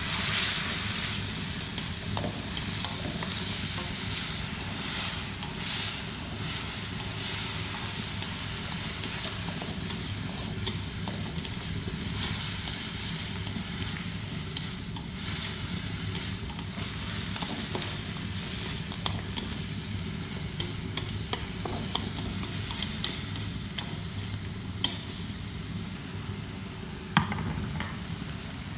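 Chopped wild bird meat sizzling in a steel wok as it is stir-fried, with a steady hiss and scattered scrapes and knocks of the stirring against the pan. Two sharp knocks stand out near the end.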